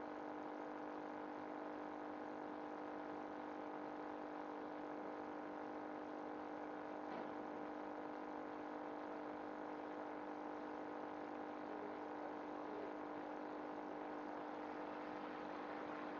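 Meat browning in hot olive oil in a stainless steel saucepan: a steady sizzle under a constant hum of several fixed tones, with one soft knock about seven seconds in as another piece goes into the pan.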